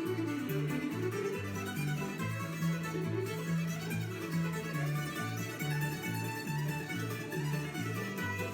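Background music with a steady bass line alternating between two low notes about twice a second.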